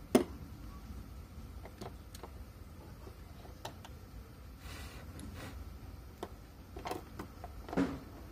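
Small clicks and taps of iPhone 5s parts being handled during reassembly, the logic board and screen knocking against the metal housing and the bench. The sharpest click comes just after the start, with a brief rustle midway and a few more taps near the end.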